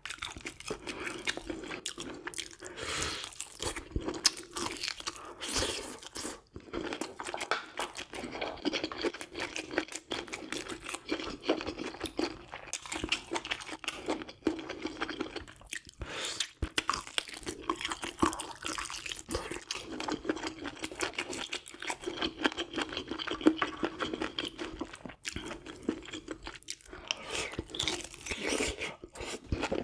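A person chewing and crunching food close to the microphone, in a continuous irregular run of small clicks and bites.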